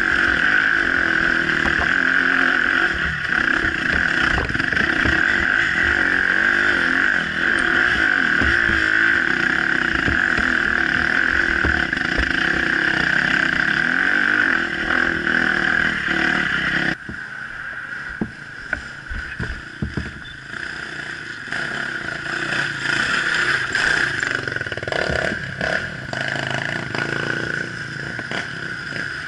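Off-road dirt bike engine running under throttle as it climbs a rocky trail, heard from on board. About two-thirds of the way through the engine note drops sharply and stays quieter as the throttle comes off.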